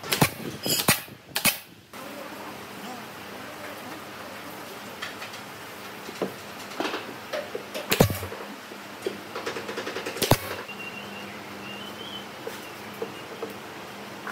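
Sharp workshop bangs: three in quick succession at the start, then two more spaced further apart, with small clicks and knocks between them over a steady low background noise.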